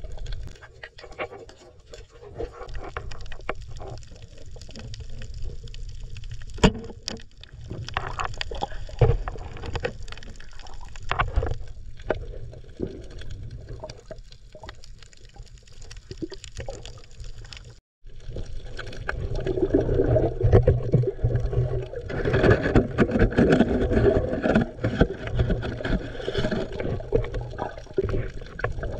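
Muffled water noise of an underwater camera, a low rumble with scattered sharp clicks. There is a brief cut about 18 seconds in, after which the sloshing and gurgling is louder and fuller.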